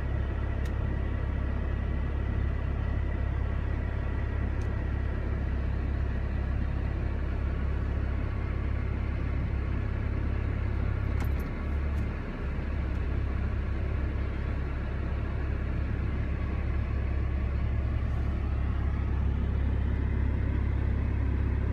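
A car engine idling: a steady low rumble with a few faint clicks.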